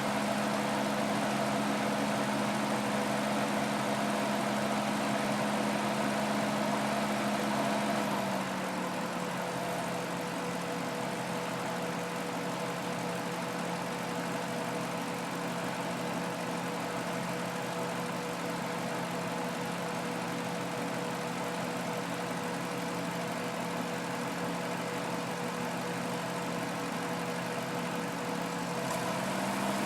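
Subaru WRX turbocharged flat-four idling steadily while its cooling system is burped of trapped air. The idle hum drops slightly in pitch and level about eight seconds in, and rises back near the end.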